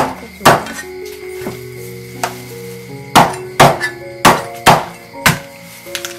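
Cleaver chopping through crispy roast meat onto a wooden chopping board: about ten sharp chops, coming faster in the second half, with music underneath.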